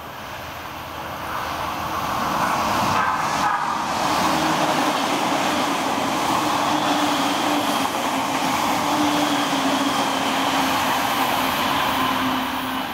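Odakyu Romancecar limited express electric train passing through the station without stopping. The sound builds over the first two seconds into a steady rush of wheels on rails, with a humming tone underneath that drops slightly in pitch as the cars go by.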